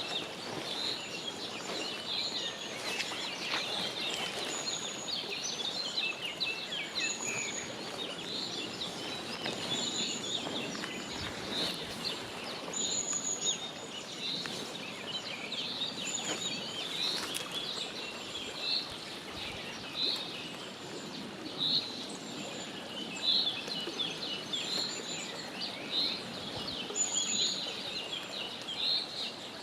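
Mallard ducklings peeping: many short, high calls. A thin, higher note repeats every second or two over a faint hiss.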